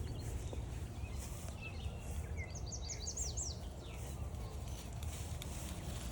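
A songbird singing a quick series of about eight high, down-slurred notes about halfway through, with a few fainter chirps just before, over a steady low rumble of outdoor noise.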